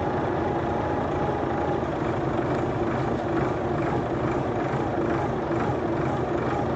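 Heavy vehicle engine running steadily with an even drone.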